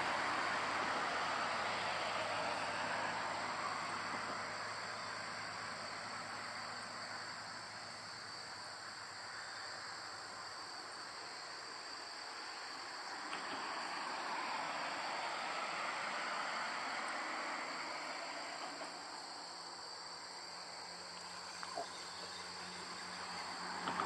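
Steady high-pitched chirring of insects, under the rushing of passing road traffic that fades away, swells again midway and builds once more near the end.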